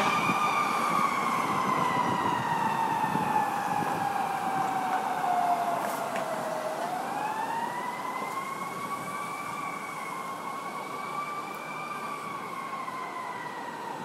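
Ambulance's Whelen siren sounding a slow wail and fading as it moves away. Its pitch falls for about seven seconds, then rises and holds before starting to fall again near the end, over the sound of street traffic.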